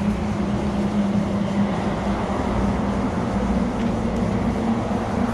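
A steady, fairly loud mechanical drone, a large engine or machine running with a constant low hum.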